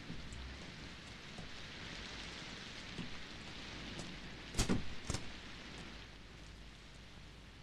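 Steady rain hiss, with two sharp knocks about half a second apart a little after the middle.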